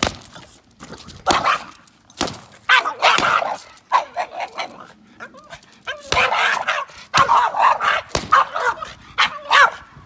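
Boston terrier puppy barking and yipping in agitated, repeated bursts as it lunges at a floor mat and brush being waved over it.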